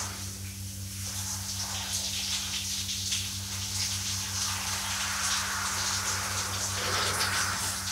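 Water streaming from an overhead rain shower head and splashing, a steady hiss, with a steady low hum underneath.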